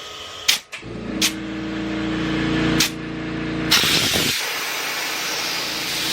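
An air compressor inflating a tubed motorcycle tyre toward about 50 psi to seat the bead. After a couple of clicks, a steady hum grows louder for about three seconds, then gives way to a rushing hiss of air.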